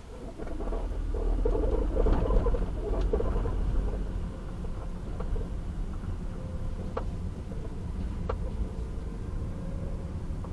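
Road and engine noise of a car heard from inside the cabin as it drives in city traffic. A low rumble grows about half a second in as the car moves off, with a clattering rattle over the first few seconds. It then settles to a steadier drone, broken by two sharp clicks.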